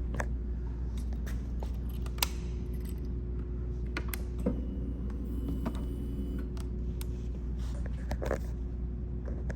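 Scattered light clicks and small rattles at irregular intervals, over a steady low hum.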